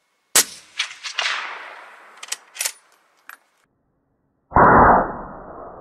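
Suppressed .308 Winchester rifle shot from a Marlin X7VH with a Stalon Whisper suppressor, in an indoor range: a sharp crack about a third of a second in, then a few quick sharp clicks and a fading echo. At about four and a half seconds the same shot is heard again slowed to quarter speed, as a deeper, duller boom that fades slowly.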